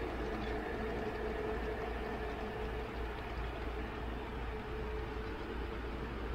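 Large-scale garden-railway model train running on its outdoor track: a steady motor and gear hum with rolling wheel noise.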